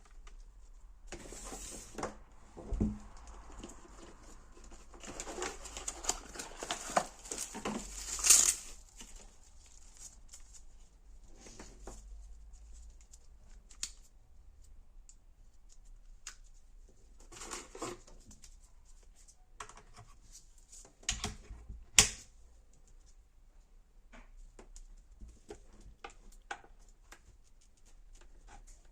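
Handling noises: crinkling packaging with scattered clicks and knocks, in clusters. Two sharp knocks stand out, about a third of the way in and about three quarters of the way in.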